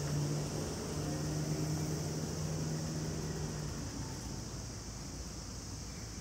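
A steady low mechanical hum over a constant high hiss; the hum fades out a little under four seconds in.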